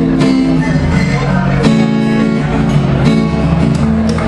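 Acoustic guitar strummed live, ringing chords with a strong, steady level.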